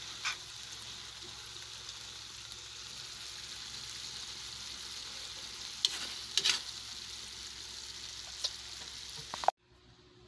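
Kangkong and tofu sizzling steadily in a frying pan, with a few sharp clinks or scrapes of a utensil stirring. The sizzle cuts off suddenly near the end.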